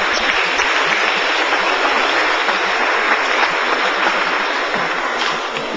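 Audience applauding, a steady dense clapping that thins out near the end.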